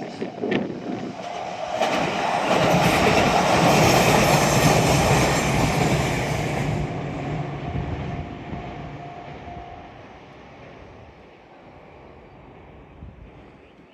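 A train passing over a level crossing: its noise swells about two seconds in, is loudest for a few seconds with the clatter of wheels on rails, then fades steadily as it moves away.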